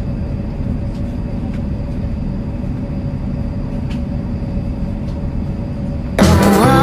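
Steady low rumble of a train, heard from inside the carriage. About six seconds in, loud music cuts in suddenly.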